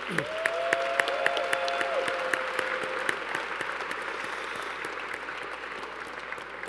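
Audience applauding, a dense patter of many hands that slowly dies down, with a couple of long held cheers from the crowd over the first few seconds.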